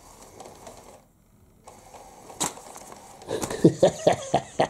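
Motorised cat chaser toy running: a sharp click, then a quick rattle of mechanical clacks at about three a second near the end.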